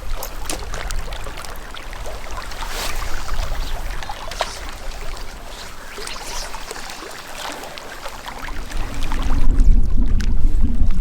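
Lake water sloshing and splashing in a series of small irregular splashes. From about nine seconds in, a loud low rumble of wind buffets the microphone.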